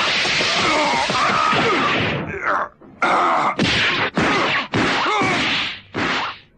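Anime fight sound effects of a beating: for about two seconds a sustained rush of noise with strained groaning, then a string of about six hard punch impacts in quick succession.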